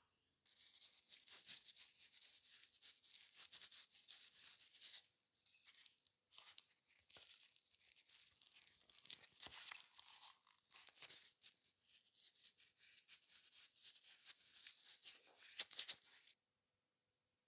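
Faint rustling and crinkling of disposable plastic gloves, full of small crackles, as hands rub a dry spice mix into raw chicken thighs. It stops about a second before the end.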